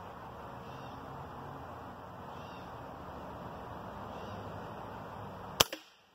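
A Hatsan Invader Auto .25-calibre pre-charged pneumatic air rifle fires one shot about five and a half seconds in: a single sharp crack, followed at once by a smaller knock. Before the shot there is only a steady background hiss.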